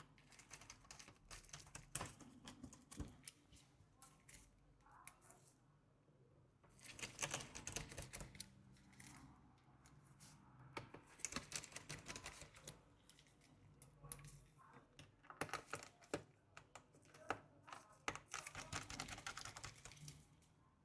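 Faint bouts of rapid clicking and scratching from a precision screwdriver driving the small screws that hold a MacBook Pro's logic board, about four bouts with short pauses between them.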